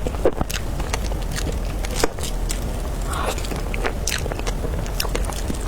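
Close-miked eating of dragon fruit cake: bites and chewing with wet mouth clicks and smacks, a couple of them louder, over a steady low hum.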